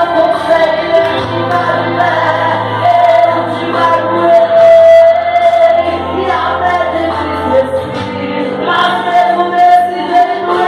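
A song: a singing voice over instrumental accompaniment with a steady bass, holding one long note about halfway through.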